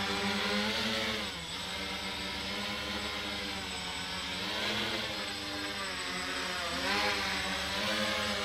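Small quadcopter's electric motors and propellers whining in a low hover, the pitch dipping and climbing back as the throttle is eased off and opened up, about a second and a half in and again near seven seconds.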